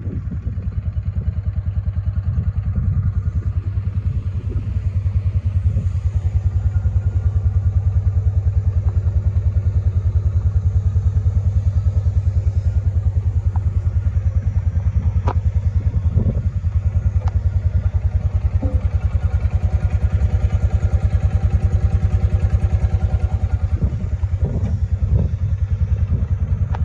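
Kawasaki Mule SX's single-cylinder engine idling steadily with an even, fast low pulse, a little louder after the first few seconds, with a couple of light clicks near the middle.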